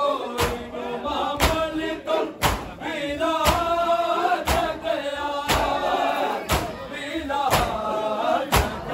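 Men chanting a noha, a Shia lament, together with sharp, unison chest-slaps of matam falling evenly about once a second.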